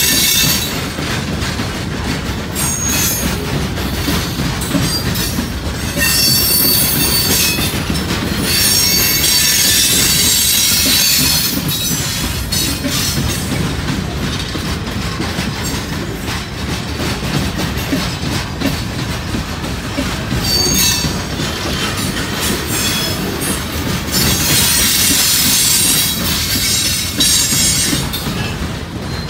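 Freight train cars rolling past close by: a steady rumble and clatter of steel wheels on the rails, with high-pitched wheel squeal that rises and fades several times.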